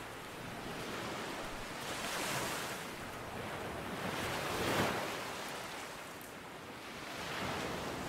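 Ocean surf: a rushing wash of waves that swells and fades three times, roughly every two and a half seconds.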